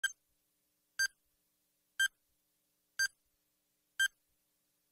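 Countdown timer beeping: short, high electronic beeps, one each second, with silence between.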